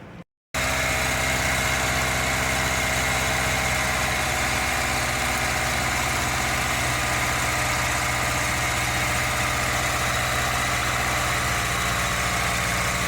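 2005 Hyundai Matrix engine idling steadily, starting abruptly about half a second in after a brief silence. The engine has a misfire that the mechanic traces to low compression from worn piston rings in one cylinder.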